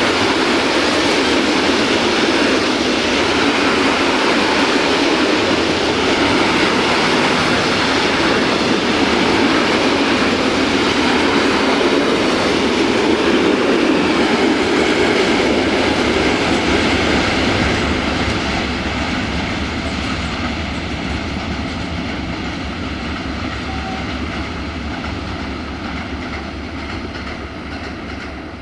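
Freight train of high-sided open wagons rolling past close by: the steady rumble of wagon wheels running on the rails, fading gradually over the last ten seconds or so.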